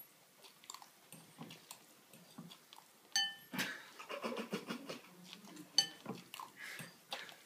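Eating noises from a dish: repeated smacking and licking sounds, with the dish clinking and briefly ringing about three seconds in and again near six seconds.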